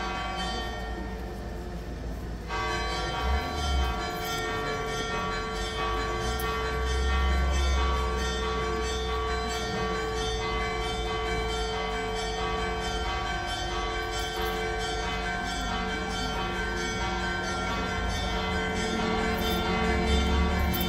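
Church bells ringing on and on, many long-held overlapping tones, brighter from a couple of seconds in, with an occasional low rumble underneath.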